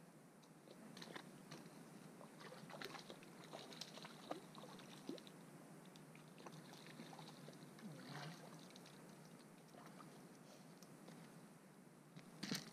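Faint water splashing, with scattered small clicks and rustles, as a small trout is netted in the shallows at the lake's edge; a sharper knock near the end.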